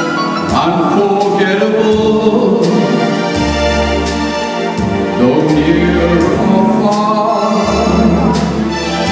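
A man singing into a handheld microphone over instrumental accompaniment, his held notes wavering with vibrato, with bass notes coming in several times.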